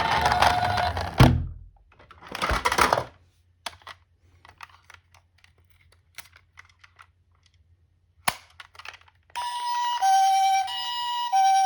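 An ambulance siren sound ends with a loud thunk, followed by a short rattle and then faint scattered clicks. About nine seconds in, a Japanese-style two-tone ambulance siren starts, alternating between a high and a low pitch, each held a little over half a second.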